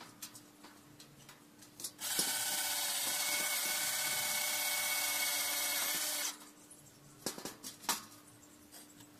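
Power drill running steadily for about four seconds, driving into the steel angle of a greenhouse frame, followed by a few sharp knocks and clicks.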